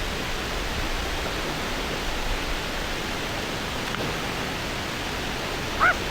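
Steady, even rushing noise with no breaks, with a brief high rising call just before the end.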